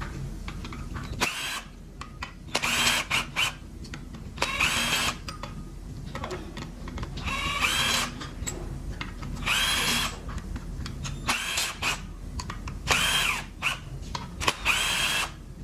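Power driver running in about eight short bursts, its motor whine climbing in pitch and then holding each time: bolts being spun out during an engine teardown.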